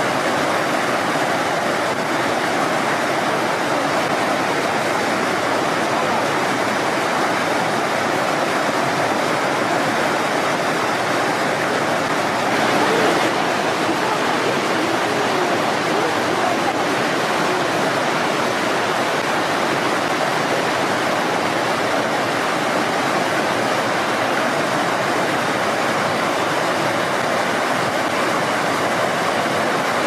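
Steady rush of a fast-flowing mountain stream, with a brief swell about thirteen seconds in.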